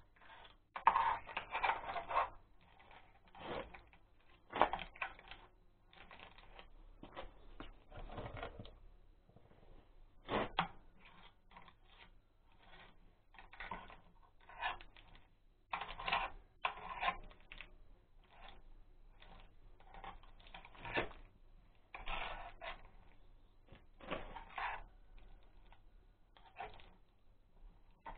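Irregular metal clicks and clinks, singly and in quick clusters, as tools and parts are handled in the open, grease-packed casing of an Oka walk-behind tractor's gearbox during reassembly.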